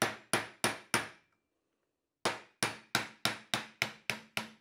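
Ball-peen hammer striking a steel pin punch to drive the roll pin out of a Porsche 915 differential carrier: sharp metal-on-metal blows about three a second, in two runs with a pause of about a second between them.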